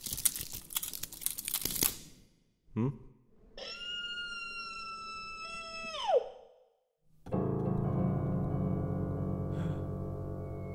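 Film soundtrack: an electric crackle lasting about two seconds, then a held synth tone that swoops sharply down in pitch, then sustained synthesizer chords.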